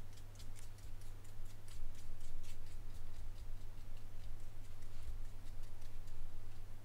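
Faint, irregular light ticks and scratches of a glitter brush pen's tip dabbed onto card stock, thickest in the first few seconds, with a few soft bumps, over a steady low electrical hum.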